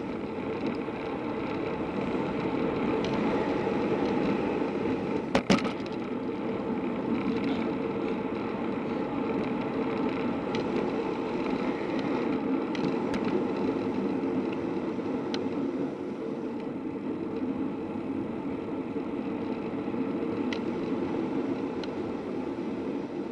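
A bicycle coasting downhill: steady rush of wind on the handlebar-mounted microphone with tyre noise from the road, and one sharp knock about five seconds in.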